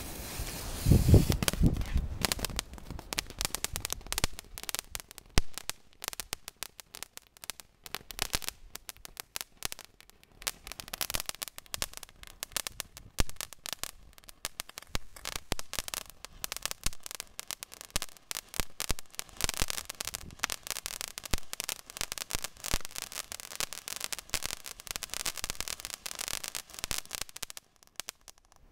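Weco Überraschungsvulkan, a small Class 2 firework fountain, burning: a dense, rapid crackle of popping sparks with stretches of hiss, cutting off suddenly near the end. A low rumble fills the first couple of seconds before the crackling builds.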